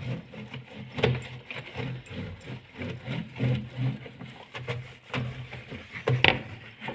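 Objects being handled during fridge cleaning: scattered knocks and clatter, with a sharper knock about a second in and another near the end, over a low hum.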